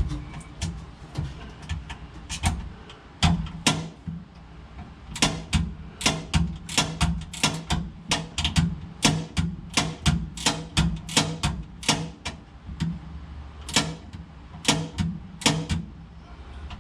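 Sharp metal clinks and clatter of hand tools being handled, irregular at about two or three a second and busier from about five seconds in, over a steady low hum.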